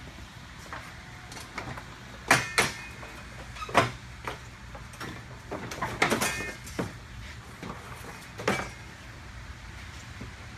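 A handful of sharp knocks and clatters, some with a short rattling ring, as the Toyota Celica GTS's plastic front bumper cover is pulled free and handled. The knocks come in small groups, about two seconds in, near four, around six and again near eight and a half seconds.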